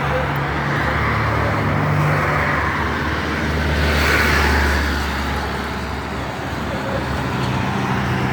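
Road traffic: a steady low engine hum with cars passing, one louder pass rising and fading about halfway through.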